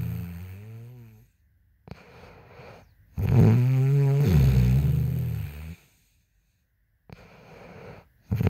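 A woman snoring in her sleep. A snore trails off in the first second. A long, loud, buzzing snore starts about three seconds in, after a softer breath. After a short silence and another soft breath, the next snore begins right at the end.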